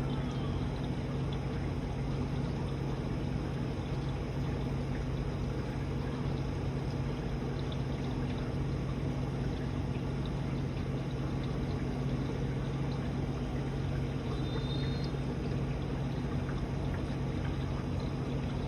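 Aquarium filtration running: water pouring and trickling into the tank over a steady low pump hum.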